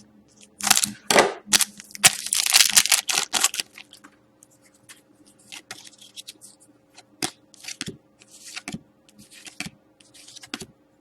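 A trading card pack's wrapper being torn open with two rough bursts of tearing and crinkling, followed by fainter scratchy rustles of cards being slid out and handled.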